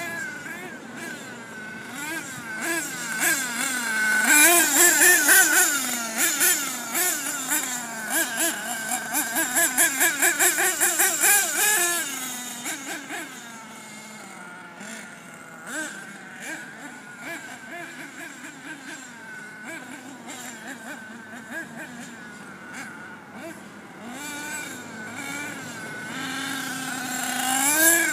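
Radio-controlled truck's small two-stroke engine revving up and down as it is driven, its pitch rising and falling constantly. Loudest in the first half, with a run of quick throttle blips, a couple a second, then running quieter before climbing sharply again near the end.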